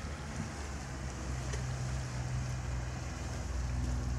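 Steady low hum of a boat's outboard motor under wind buffeting the microphone and choppy water. A second, higher engine tone joins about three seconds in as a skiff with an outboard motor runs past close by.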